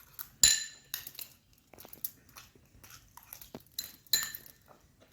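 Cutlery clinking against a dish while eating: two sharp clinks with a short metallic ring, about half a second in and near the end, among smaller scrapes and crunchy clicks.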